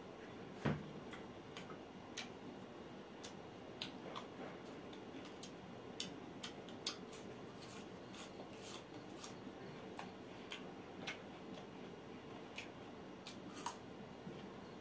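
Close-miked chewing of grilled mutton sekuwa, eaten by hand: irregularly spaced small mouth clicks and smacks over a faint steady hiss, with one louder soft thump about a second in.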